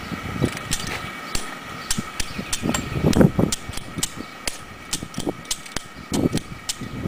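Small electric blower on a homemade wood gasifier running with a steady whine, while sharp clicks repeat irregularly as a lighter is struck at the smoking gas outlet to light the producer gas. A few louder low bumps come about three seconds in and again near the end.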